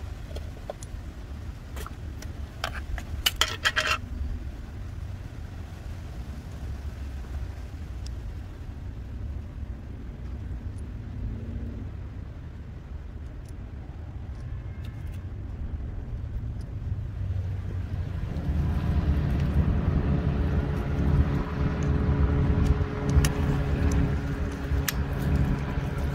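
Metal pellet magazine clicking sharply several times about three seconds in as it is handled and loaded, over a low wind rumble on the microphone. From about two-thirds of the way through, an engine drone comes in and grows louder.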